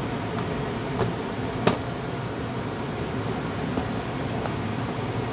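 Steady machine hum, with a few sharp clicks of kitchenware being handled, the loudest about one and a half seconds in.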